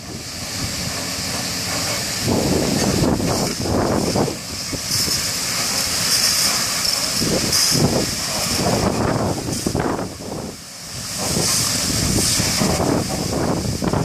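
Water jets from the nozzles of a drive-through truck-wash spray bar hissing against a pickup's undercarriage, tyres and sides, the hiss swelling twice. An uneven low rumble comes and goes underneath.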